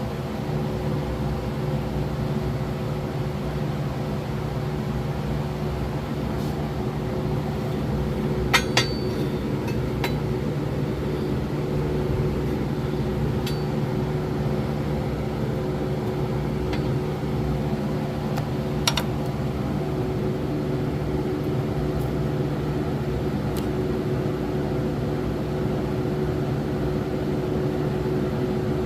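A steady mechanical hum throughout, with occasional sharp metallic clinks of hand tools and parts being handled on the engine brackets.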